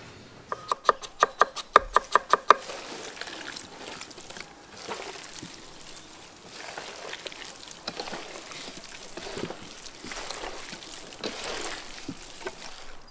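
A quick run of sharp taps in the first two seconds, then the wet squelching and squishing of hands kneading chunks of raw ostrich meat and sliced onions together in a stainless steel pot to marinate them.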